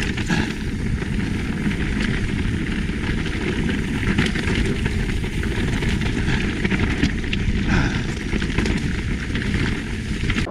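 Mountain bike riding fast down a rocky, bermed trail: steady tyre rumble and wind on the on-bike microphone, with frequent sharp knocks and rattles as the bike runs over rocks.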